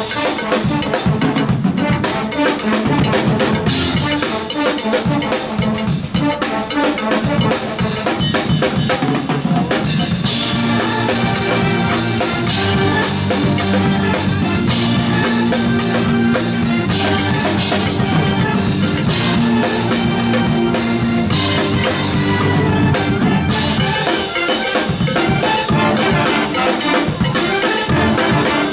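A band of saxophones, clarinets, flutes and sousaphones playing a piece together, backed by drums and crash cymbals beating steadily.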